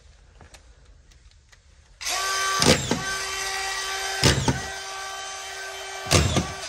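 Cordless power driver motor whining steadily, starting about two seconds in, with three short louder bursts as drywall screws are driven through sheetrock into the metal studs.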